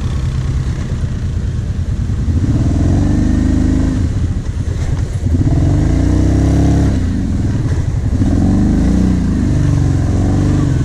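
Kawasaki Brute Force 750 quad's V-twin engine running under load, revving up and falling back several times as the quad works through mud and ruts.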